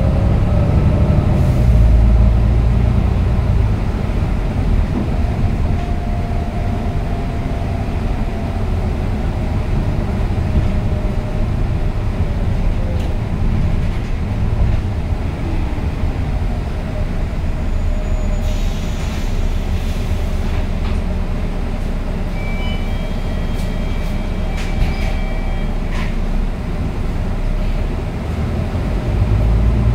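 Volvo B9TL double-decker bus running at a steady speed, heard inside the passenger cabin. The engine and road noise make a continuous low drone, with a faint slowly wavering whine from the driveline, and scattered rattling clicks in the second half.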